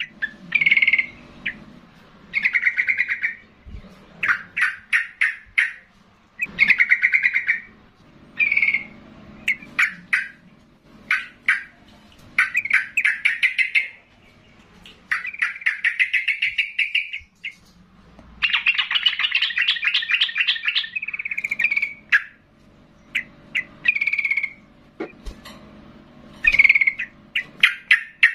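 Yellow-vented bulbul singing loudly and repeatedly: short bubbling phrases of rapid notes, each about a second long, with brief pauses between them. A longer run of notes comes about two-thirds of the way through.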